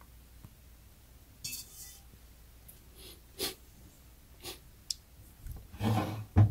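Faint breaths and a few light clicks, then hands handling an Instant Pot electric pressure cooker near the end, with a dull knock against its housing.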